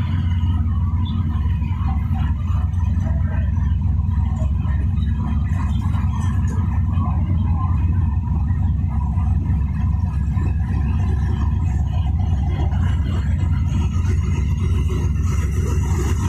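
ZCUP-30 diesel-electric locomotive pulling slowly away on departure, its engine running with a steady low rumble.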